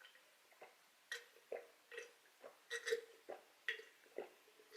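A string of short, faint mouth sounds close to the microphone: quick wet smacks and small pops, about two or three a second.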